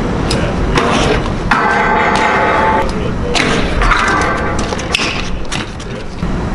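BMX bike rolling on concrete and striking a concrete ledge, with several sharp thumps and clatters over a steady rumble.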